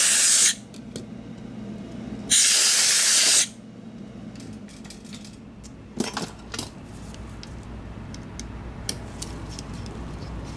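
Two bursts of air hissing from an air duster, blowing dust and debris out of an opened Logitech MX Anywhere 3 mouse: the first cuts off about half a second in, the second lasts about a second from just over two seconds in. Then a few light clicks and taps as the mouse's plastic parts are handled.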